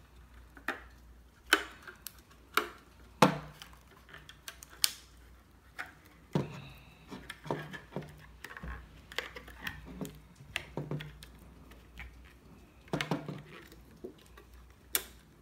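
Handling noise from fitting a rubber balloon diaphragm with a bolt and washers by hand: scattered sharp clicks and taps of the metal parts, with soft rubbing between them.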